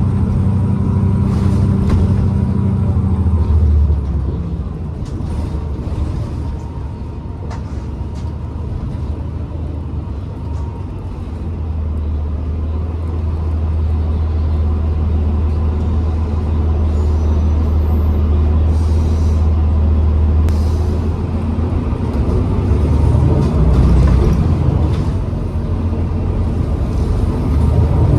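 2012 New Flyer XDE40 diesel-electric hybrid transit bus heard from inside: the drivetrain runs with a low hum that rises and eases as the bus pulls away and slows. A faint steady whine sounds over it for the first ten seconds or so, and there are occasional clicks and rattles.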